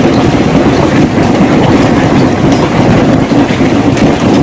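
Heavy hailstorm: hailstones pelting hard surfaces in a loud, dense, continuous clatter.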